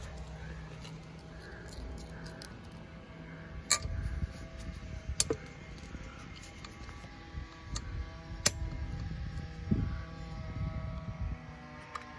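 Small metal hardware clinking during assembly of a steel tube frame: a few sharp clinks of bolts, washers and a tool against metal, about three in all, among softer handling bumps.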